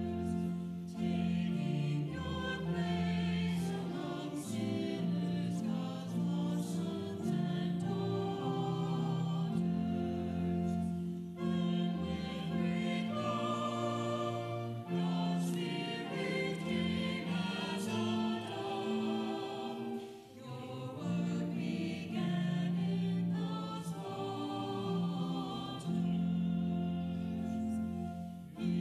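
Congregation and choir singing a hymn together in held chords, with short breaks between the sung lines.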